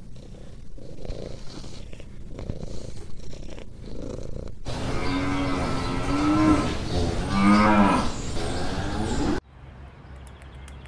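Cow mooing: two long pitched moos, about five and seven and a half seconds in, after a few seconds of low rumbling noise; the sound cuts off abruptly near the end.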